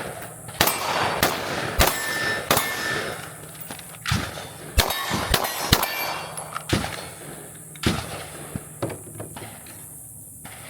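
A string of about ten pistol shots at an irregular pace over roughly eight seconds, with steel targets clanging and ringing when hit, during a timed drill.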